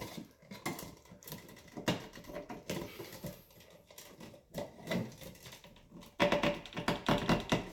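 Irregular clicks, scrapes and knocks of 14-gauge electrical cable being worked and pulled through a plastic wall switch box, with a quicker, louder clatter of clicks near the end.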